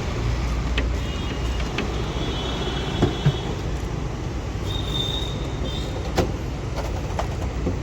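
Steady low hum of a car, with a few sharp clicks and knocks scattered through it and a faint high whine about midway.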